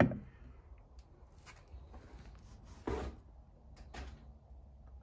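Faint handling sounds: a few light knocks as a Weber intake plenum is seated on a Weber carburettor and set down on a wooden bench. The loudest knock comes about three seconds in.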